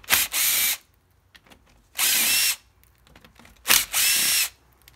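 Power ratchet whirring in three short bursts as it spins loosened bolts out of a Jaguar independent front suspension's lower ball joint, with a light click before the last burst.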